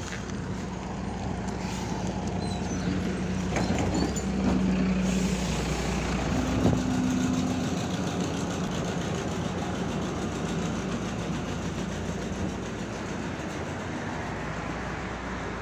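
MAZ-105 city bus running, heard on board: a steady diesel engine drone and road noise that grows louder over the first several seconds, peaks about six or seven seconds in, then settles to an even level.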